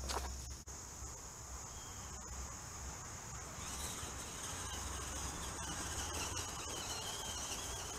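Steady chorus of insects chirring in woodland, a single high buzzing band that grows louder from about four seconds in. A sharp click just at the start.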